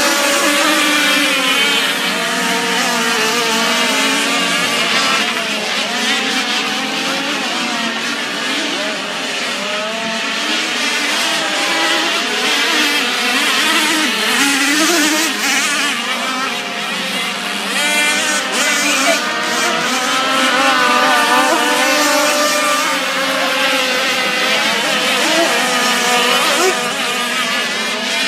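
Several radio-controlled racing boats' small engines running at high revs together, a shrill multi-pitched whine whose pitches waver up and down as the boats throttle and turn.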